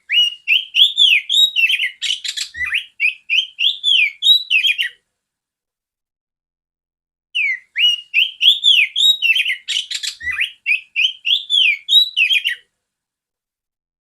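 Oriental magpie-robin (kacer) song, loud and clear: a fast run of whistled up-and-down notes with a brief rasping patch in the middle. The same five-second phrase plays twice with a short silent gap, as a looped recording.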